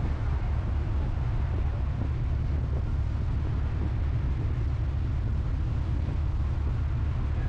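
Steady low rumble on board a passenger ferry under way: engine and water noise, with wind buffeting the microphone.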